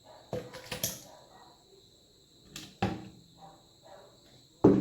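Eggs being cracked into a blender jar: a series of sharp knocks and clicks, with the loudest knock near the end.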